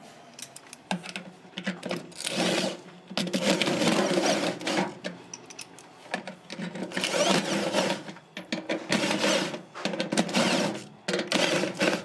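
Handheld electric drill-driver running in about six short bursts, each under a second to about a second and a half long, with pauses between them, as it works on the brass hub plate in the bottom of a steel washing-machine tub.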